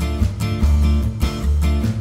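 Background music led by guitar, with a rhythmic bass line.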